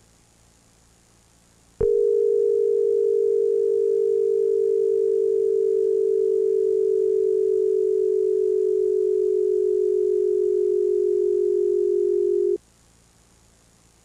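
Emergency alert attention tone: a loud, steady low alarm tone that starts with a click about two seconds in, sags slightly in pitch over about eleven seconds, then cuts off abruptly. Faint tape hiss lies beneath it.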